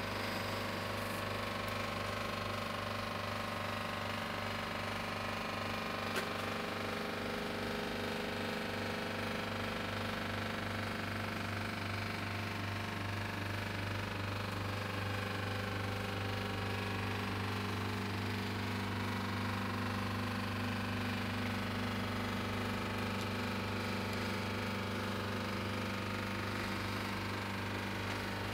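Liebherr refrigerator compressor running with a steady hum and a crackling rattle. A single small click comes about six seconds in.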